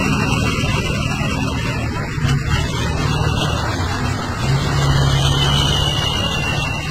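Heavy-haul truck's diesel engine running steadily as it slowly pulls a loaded multi-axle trailer: a continuous low drone that grows a little stronger about two-thirds of the way through.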